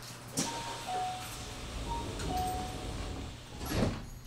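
Electronic chime melody: a short run of clean single notes at different pitches, over the steady hum of the train car. A clunk comes early and a louder knock near the end.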